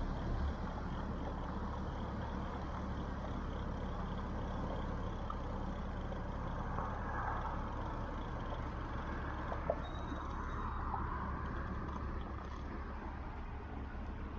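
Steady rumble of road traffic, swelling slightly in the middle as vehicles pass.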